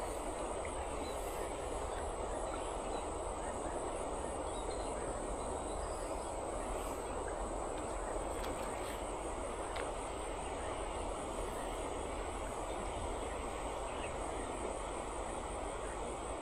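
Steady rush of flowing river water, an even noise with no breaks, over a low rumble.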